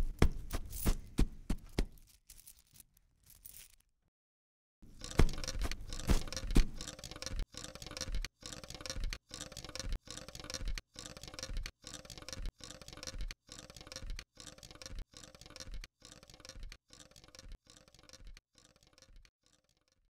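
Foley sound effects: a few sharp knocks, a brief pause, then a long run of rapid clattering and clinking broken by short silent gaps about once a second.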